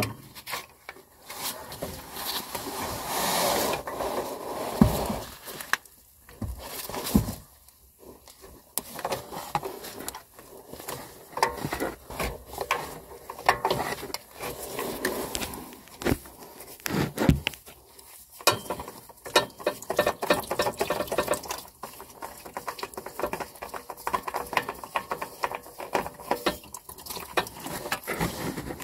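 Oil filter pliers gripping and turning a spin-on oil filter to work it loose, with irregular clicks, knocks and scrapes of the tool on the filter as the old filter is unscrewed and taken off.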